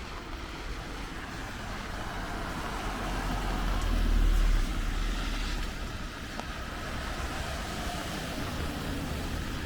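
A car passing on a wet road, its tyre hiss and engine rumble swelling to the loudest point about four seconds in and then fading, over steady rain.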